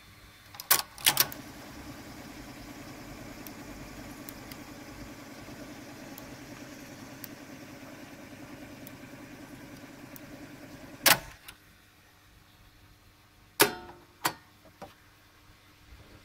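Grundig TK 60 valve reel-to-reel tape recorder's drive mechanism: two loud mechanical clunks about a second in, then the motor, belts and rubber idler wheels whirring steadily for about ten seconds, running normally. A loud clunk comes as the running stops, and two more clunks follow a few seconds later.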